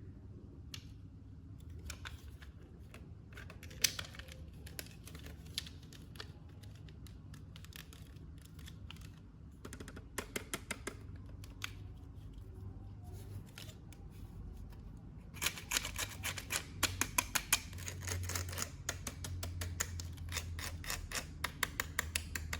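Small sharp clicks and crackles of toy packaging and plastic figure parts being handled. They come scattered at first, then in a quick dense run over the last several seconds.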